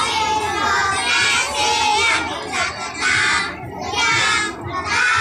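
A choir of young children singing together in short, loud phrases with brief breaks between them.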